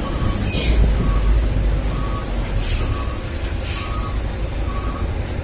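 Dump truck's diesel engine running low and steady, with a reversing beeper sounding about once a second. Three short air-brake hisses come about half a second, two and a half, and four seconds in.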